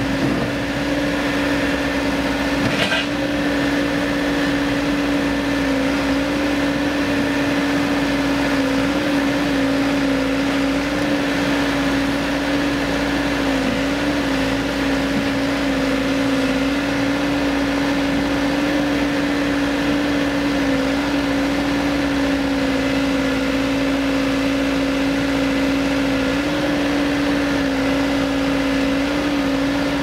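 Caterpillar backhoe loader's diesel engine running at a steady speed while its hydraulic arm digs and dumps, a constant hum that wavers slightly in pitch a few times as the load changes. A brief knock about three seconds in.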